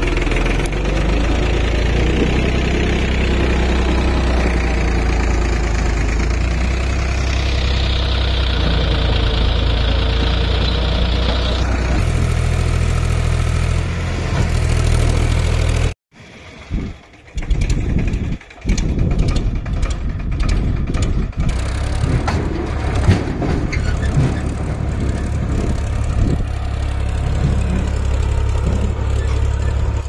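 Powertrac 434 DS tractor's diesel engine running steadily while its hydraulic tipping trolley stands raised and sand slides off the bed; the engine note changes twice. About halfway the sound breaks off, and the tractor is then heard driving over rough ground, its engine rising and falling with irregular knocks and rattles.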